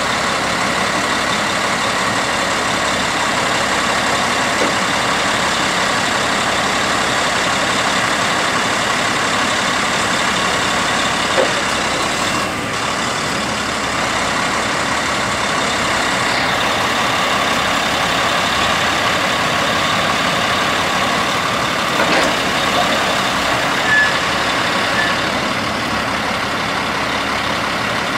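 Caterpillar C12 inline-six diesel of a semi truck running steadily to power its knuckle boom crane's hydraulics, with a steady high whine over the engine and a few short clicks as the boom is moved.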